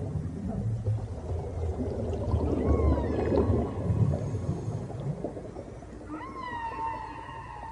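Whale calls gliding upward in pitch, one held longer from about six seconds in, over a low underwater rumble.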